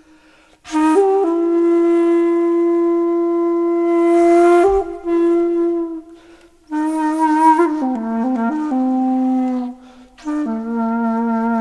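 Solo flute music with a breathy tone, playing long held notes that bend slightly and step down in pitch. The phrases are separated by short pauses, about a second in, near the middle and about two-thirds through.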